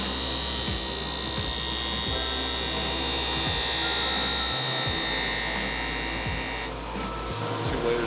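D2 steel knife blade pressed against the spinning wheel of a JET bench grinder: a loud, steady grinding hiss as the edge is sharpened, stopping suddenly near the end.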